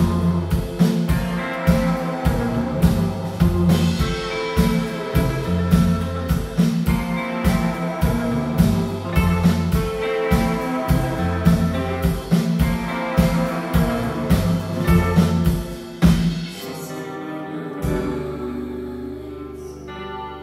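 Live rock band playing an instrumental passage with drums, bass and guitars to a steady beat. About sixteen seconds in the drums stop and the music drops to a quieter held guitar and bass sound.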